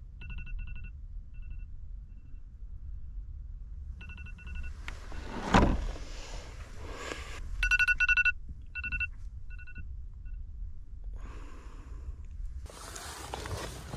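Phone alarm going off: a high electronic beep repeated in short clusters with gaps between them. A louder rustle or thump comes a little before the middle, and broader rustling near the end.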